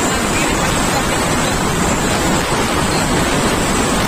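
Steady rushing noise of traffic on a wet road as a truck and motorbikes pass, with no distinct engine note.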